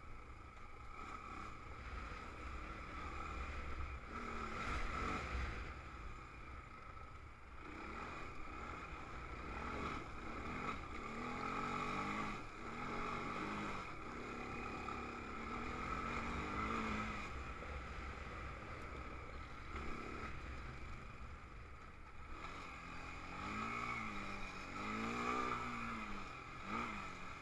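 Honda TRX300EX sport quad's single-cylinder four-stroke engine under way, revving up and easing off again and again, most often in the second half, over a steady low wind rumble on the microphone.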